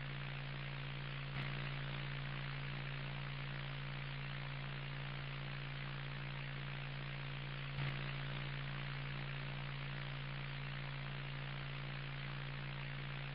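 Mock broadcast static: a steady low electrical buzz under even hiss, with faint pops about one and a half seconds and eight seconds in.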